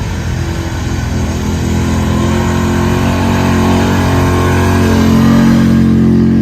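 Truck engine running hard at steady high revs, its pitch held and its sound slowly getting louder.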